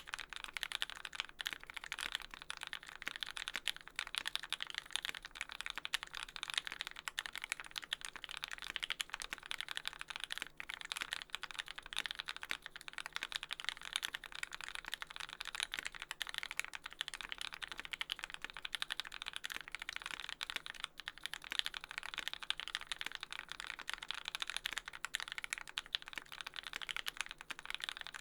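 Fast, continuous typing on a mechanical keyboard with lubed TealiosV2 linear switches fitted with Cherry tops, on an aluminium plate with GMK doubleshot keycaps and no sound dampening: a dense stream of rapid key clacks with no pauses.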